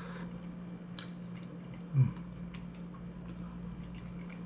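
A person chewing a forkful of cooked fish, with small clicks and a sharp click about a second in, and a short low "mm" about two seconds in. A steady low hum runs underneath.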